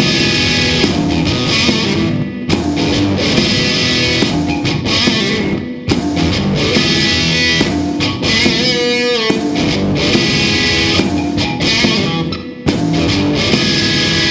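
Blues song played on guitar over a steady beat; about halfway through, one note slides in pitch.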